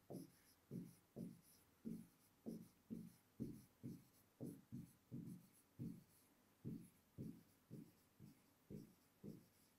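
Faint, short strokes of a stylus writing on an interactive whiteboard screen, about two a second, as a line of handwriting is written out.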